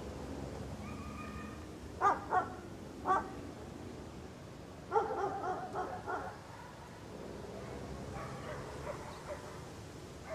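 A small dog barking and yipping in short calls: three sharp yips a little after two seconds in, a quick run of barks around five to six seconds in, and fainter ones later, over a steady low hum.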